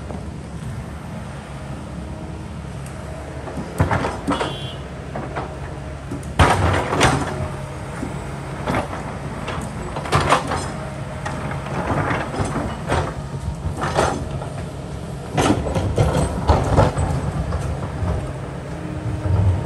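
Kobelco hydraulic excavator's diesel engine running steadily, with repeated clanks and scrapes of the steel bucket against rock every second or two; the loudest come about six seconds in and around ten seconds in.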